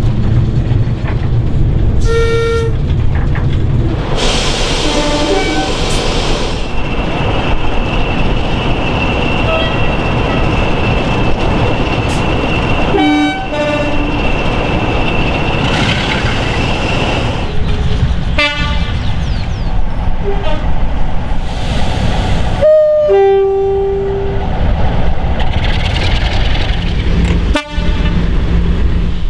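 Diesel locomotive horns sounding in several short blasts over the heavy, continuous running of locomotive engines and trains on the rails. A brief toot comes about two seconds in, heard from inside a cab, and a clearer single horn blast of about a second comes past the middle; the sound changes abruptly several times between clips.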